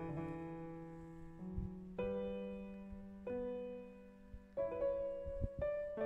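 Background piano music: slow, soft notes and chords struck every second or so, each ringing out and fading.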